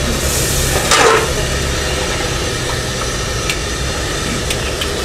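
Steady low engine hum from a motor running at idle. A brief hiss and a short sound rise over it about a second in.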